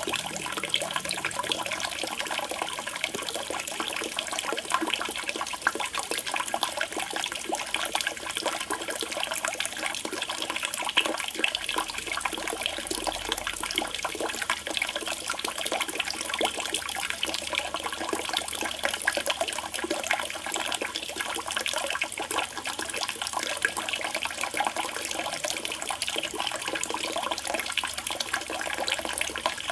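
Steady trickling and splashing of water falling into a koi pond.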